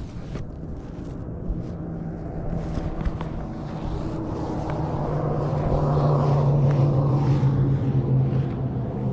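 A vehicle engine humming, growing louder to a peak about two-thirds of the way through and then easing off, like a vehicle passing by.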